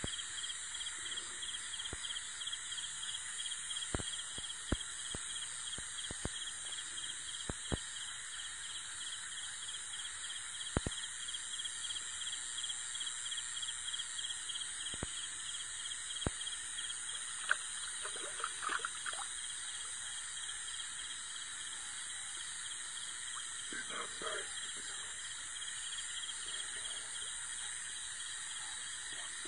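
Night chorus of insects such as crickets: a steady, rapidly pulsing high trill layered over several other steady high-pitched calls. A few sharp clicks fall scattered through it.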